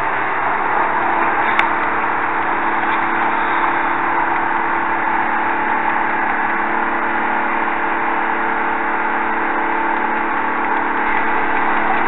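Diesel engine of a grapple log loader running steadily, an even machine hum with several held tones. A single short click about one and a half seconds in.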